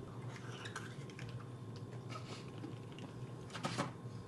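Light clicking and crackling of a boiled balut egg's shell being cracked and picked off by fingers, with a couple of sharper clicks about three and a half seconds in.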